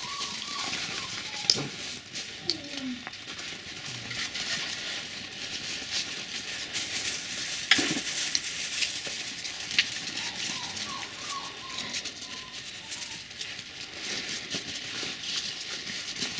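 Faint high squeaks and whimpers from young puppies, over a steady crackling hiss with scattered sharp clicks.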